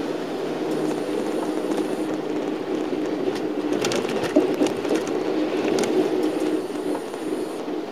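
Inside a moving shuttle bus: steady engine and road noise with tyres on a wet road, broken by a few short clicks and knocks in the middle.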